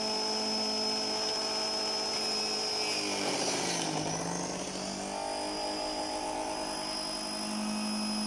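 Electric juicer's motor running with a steady whine; about three seconds in its pitch dips and slows, then climbs back up over the next few seconds.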